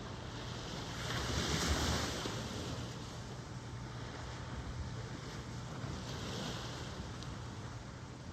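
Ocean surf washing steadily, with a wave breaking and swelling loudest about a second in and a smaller surge near six seconds.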